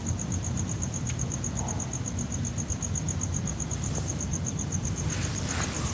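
A cricket chirping steadily, a high pulse repeating about eight times a second, over a low background rumble.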